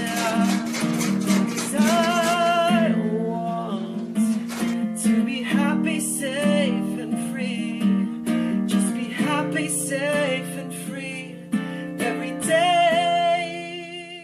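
Music: strummed acoustic guitar with a singing voice holding long wavering notes, cutting off at the very end.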